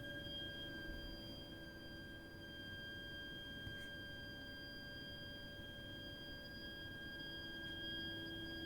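A heating system's heat interface unit and pipework giving off a steady, shrill, high-pitched whistle with fainter overtones and a low hum beneath. It is an abnormal fault noise that runs continuously for hours, even when no hot water or heating is being drawn.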